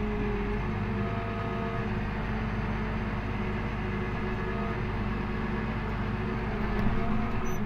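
McCormick G135 Max tractor's diesel engine running steadily at an even pitch as the tractor drives.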